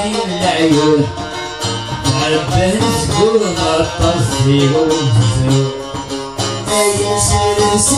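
Live folk music on plucked strings: a mandole and a long-necked banjo played together, with a voice singing over them.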